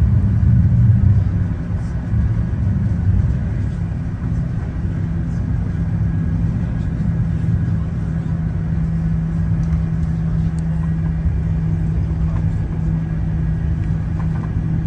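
Cabin noise of a four-engined Airbus A340 taxiing after landing: a loud, low rumble with a steady hum, heard from inside the cabin. It eases slightly after the first second or two.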